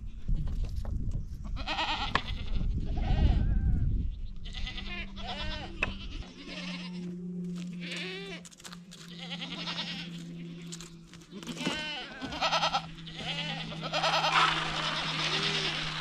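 A herd of goats bleating over and over, many short calls overlapping one after another. A low rumble runs under the first few seconds, and a steady low hum starts about five seconds in.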